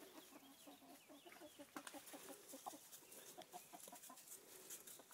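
Domestic chickens clucking faintly, a run of short, irregular clucks.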